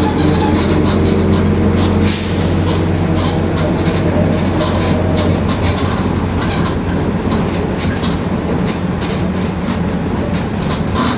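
Mercedes-Benz OF-1721 BlueTec 5 city bus driving, with a steady diesel and drivetrain drone and the differential growling. The body rattles and knocks all the way through, and there is a short burst of hiss about two seconds in.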